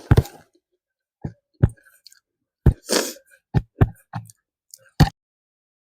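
Close-miked eating sounds from a mouthful of egg curry and pilao: a string of about nine sharp, wet mouth smacks and chews, with a longer noisy chewing sound about three seconds in.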